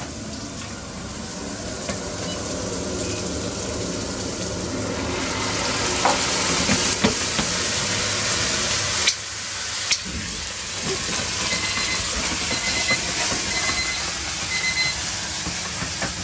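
Onions and mushrooms sizzling in a hot frying pan. About five seconds in, the sizzle swells into a louder hiss as brandy goes into the pan and is set alight for a flambé. A few sharp knocks of the pan come in between.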